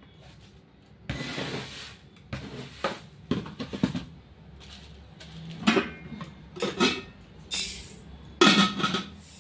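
Stainless-steel tumbler and plate clinking and knocking against each other and other containers, with a burst of rustling about a second in.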